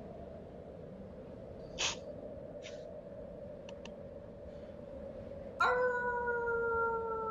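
Wolf howl: one long call that starts suddenly about two-thirds of the way through and slowly falls in pitch. Before it, a faint steady hum with a few short noises.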